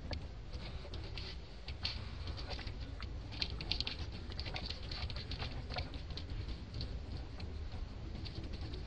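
Light crackling and clicking from macaques handling a plastic snack wrapper and fruit husks, with a steady low rumble underneath. The crackles come thickest a little over three seconds in.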